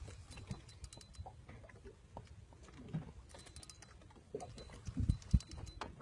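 Spinning fishing reel clicking in quick runs of ticks while a fish is played on a bent rod, with a few dull knocks about five seconds in.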